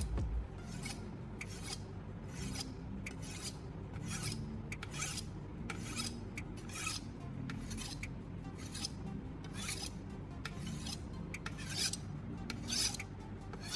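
Knife blade scraped in repeated sharpening strokes along a spark plug's ceramic insulator coated with toothpaste as an abrasive, about two short, hissy scrapes a second.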